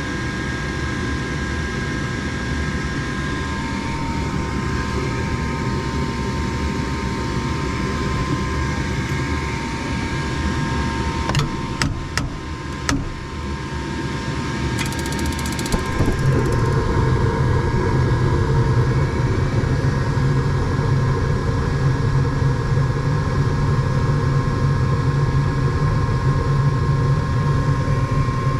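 Gas furnace's draft inducer motor running steadily with a steady hum. A few sharp clicks come about halfway through, and some seconds later the running sound steps up, louder and deeper, as the furnace moves to its next stage.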